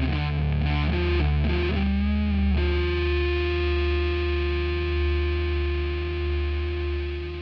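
Background music on distorted electric guitar: a quick run of changing notes, then one chord struck about two and a half seconds in and left ringing as it slowly fades.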